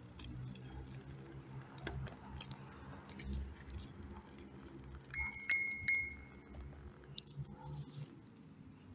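Bicycle bell rung three times in quick succession, about half a second apart, each ding ringing briefly.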